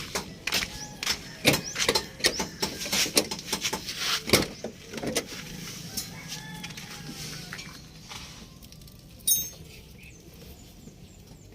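Hand tools clicking, tapping and clinking on metal in a quick, irregular run for about five seconds, then quieter, with one short high metallic ring about nine seconds in.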